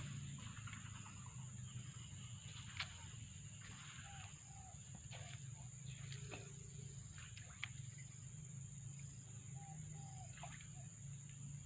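Faint bird calls, short paired notes heard twice, over a steady high whine and a low hum, with a few sharp clicks.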